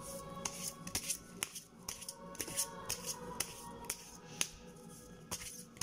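Deck of oracle cards being shuffled by hand: a run of irregular crisp clicks and flicks as the cards slide off one another, with soft background music underneath.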